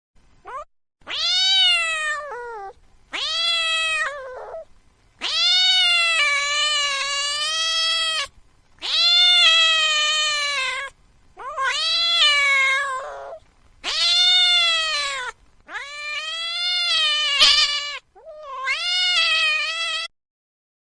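A cat meowing over and over: a brief call, then about eight long, drawn-out meows of one to three seconds each. Each rises and then falls in pitch, and they stop abruptly near the end.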